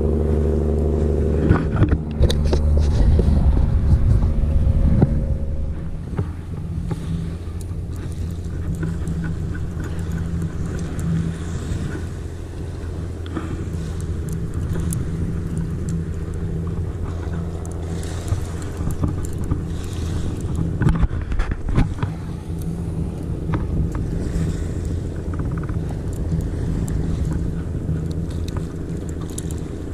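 A boat engine running, a steady low drone that drops in level and changes pitch about six seconds in, with a few knocks in the first five seconds.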